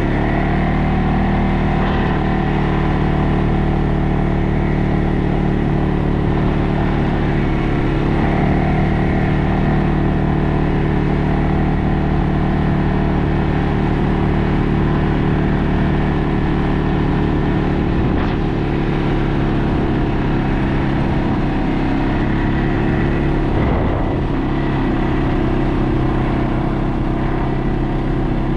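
ATV engine running steadily with a low, even drone, its pitch shifting slightly a few times.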